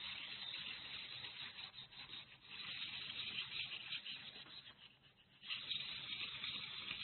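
A round pad rubbed by hand over a sheet of paper: a steady scratchy rustle that fades out for about a second near the five-second mark and then resumes.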